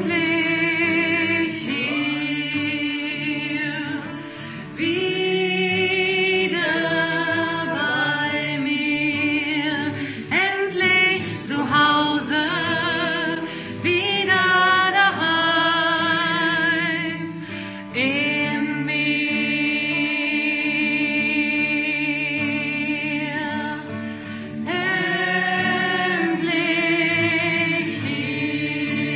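A group of voices singing together in harmony, choir-style, in phrases of long held notes with brief breaks between them.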